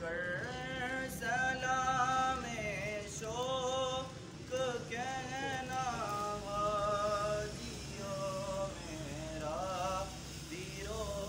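A single young male voice sings unaccompanied in slow phrases of long held notes with a wavering vibrato.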